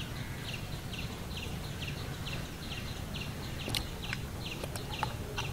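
A bird calling with short, high chirps repeated evenly about twice a second, over a steady low rumble with a couple of faint clicks.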